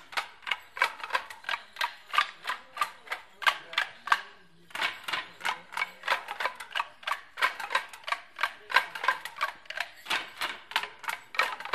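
Wooden Morris dance sticks clashing together in a stick dance: sharp clacks several times a second, with a brief break about four seconds in.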